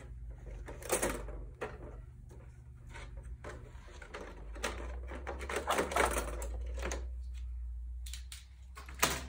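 Plastic and metal knitting machine parts clicking and clattering as they are handled and taken out of the machine's lid, in scattered clusters with a sharp knock near the end.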